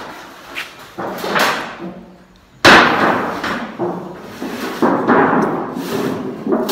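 Workshop knocks and bangs: a few sharp knocks, then one loud bang about two and a half seconds in that dies away over about a second, followed by more irregular knocking.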